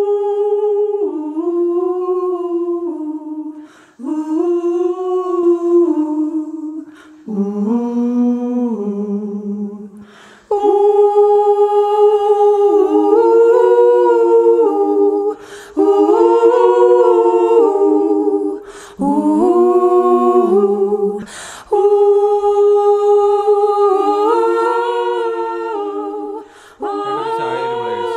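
Wordless a cappella humming in layered vocal harmony, sung in phrases a few seconds long with short pauses between them.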